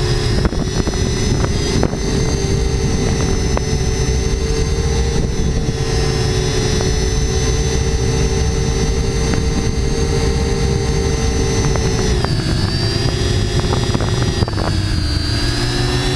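Small camera drone's electric motors and propellers whining steadily, heard from on board with a low rumble underneath. The pitch drops about twelve seconds in and again about two seconds later.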